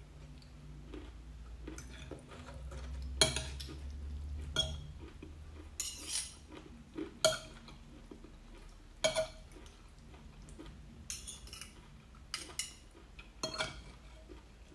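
Metal fork and spoon clinking and scraping against a ceramic plate while eating noodles in gravy, with about ten sharp, ringing clinks at irregular intervals of a second or two.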